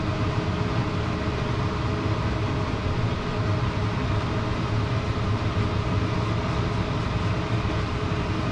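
Steady mechanical rushing noise with a low hum, unchanging throughout.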